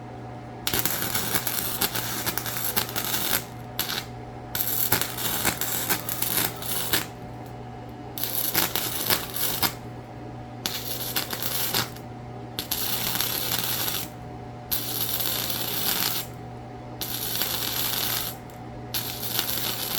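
Stick welding arc crackling and sizzling in about nine bursts of one to three seconds each, with short pauses between, as welds are laid down with a thick rod. A steady low hum runs underneath.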